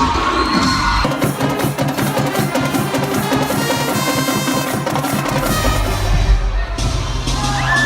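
Music driven by fast, rhythmic drumming and percussion.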